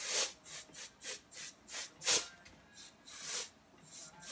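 About ten short puffs of blown air in quick, uneven succession, pushing wet alcohol ink across the painting; the loudest comes about two seconds in.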